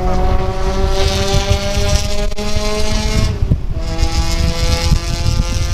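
Volkswagen Golf R's turbocharged four-cylinder engine, heard from inside the cabin under acceleration, its pitch climbing steadily. A little over three seconds in, an upshift drops the pitch and it pulls on in the next gear, over loud tyre and road noise.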